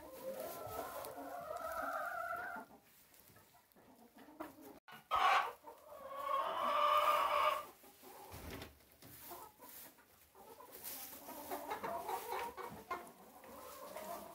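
Domestic chickens in a coop: two long, drawn-out calls, the second louder, with a short sharp sound just before it about five seconds in. Softer clucking from the hens follows toward the end.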